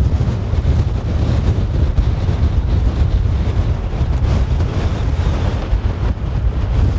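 Strong wind buffeting the microphone on an exposed snowy mountain summit: a steady, loud, low rumble with no breaks.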